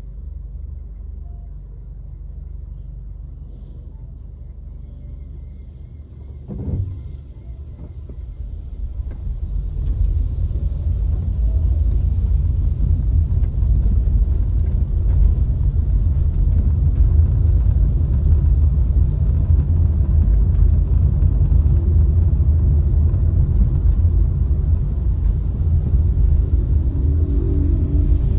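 Low rumble of a car driving, its road and engine noise growing louder about ten seconds in and then holding steady. A brief thump comes about seven seconds in.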